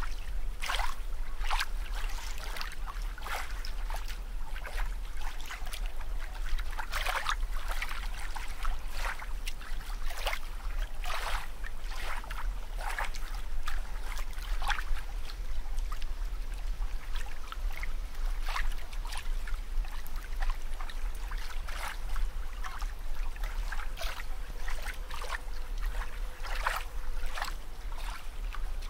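Water sound: irregular short sloshing surges over a steady low hum.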